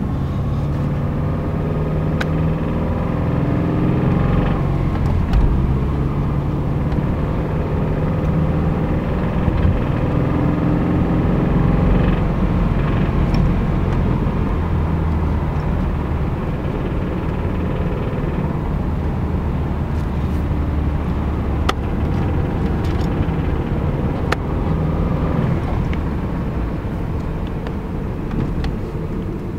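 2005 Subaru Impreza 2.5 RS flat-four engine running, with a knock from a worn connecting-rod bearing (rod knock). It gets suddenly louder right at the start, and its pitch shifts over the first half as the revs change.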